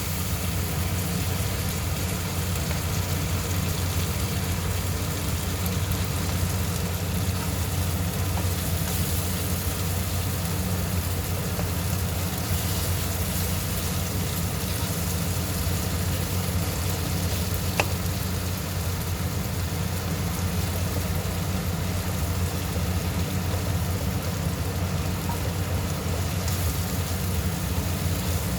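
Tomatoes, onions and spices sizzling in hot oil in a karai (wok), over a steady low hum, with a single sharp tap about eighteen seconds in.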